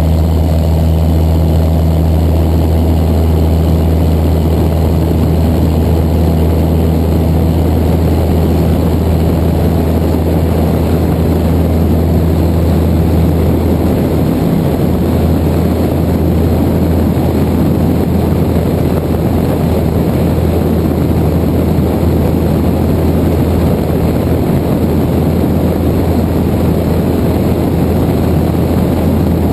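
Cessna 172's piston engine and propeller running at takeoff power during the takeoff run and lift-off, heard from outside under the wing. About halfway through, the steady engine drone gives way to a rushing noise of wind over the microphone as the aircraft gathers speed.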